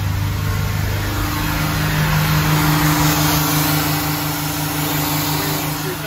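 Twin Crusader inboard engines of a 1979 Bertram 28 running together; about a second in the engine speed rises and then holds at a steady higher pitch.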